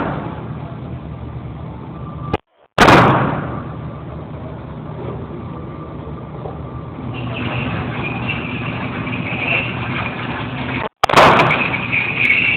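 Two shots from a Ruger .22 handgun, about eight seconds apart, each a sharp loud crack that dies away quickly, with a fainter click shortly after the second, over a steady background noise.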